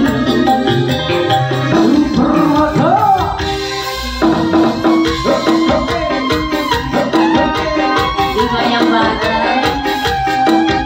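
Live band music played loud through a PA: a stage ensemble with melody instruments over a steady, busy percussion rhythm.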